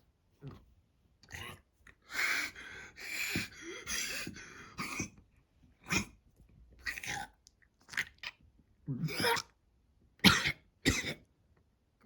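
A cat character hacking and coughing up a hairball. A long bout of harsh hacking runs from about two to five seconds in, then single coughs come roughly once a second.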